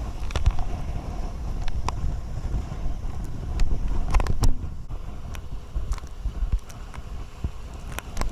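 Wind buffeting the microphone as an uneven low rumble, with scattered light clicks and knocks.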